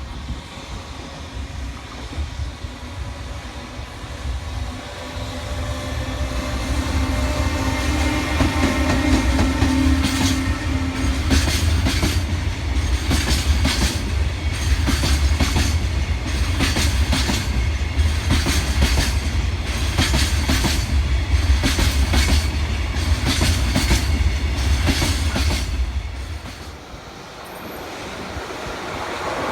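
A freight train passes with a heavy rumble that builds up. There is a steady tone early on, then a long run of wheel clacks as the wagons cross the rail joints. The rumble fades a few seconds before the end, and a new rising noise comes in right at the close.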